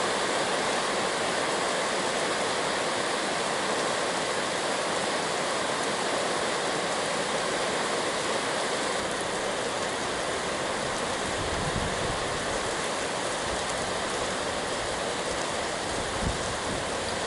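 Heavy rain falling steadily, an even hiss of water, with a few soft low thumps in the second half.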